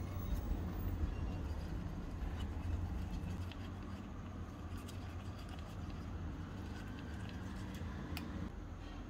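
A small spoon stirring and scraping thick curd in a small steel bowl, with scattered faint clicks as it touches the metal, over a steady low background rumble.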